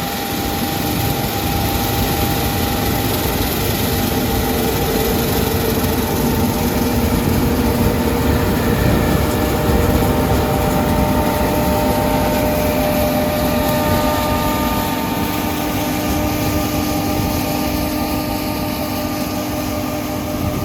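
Combine harvester running steadily while cutting winter beans: a constant engine and machinery drone with several steady whining tones over it.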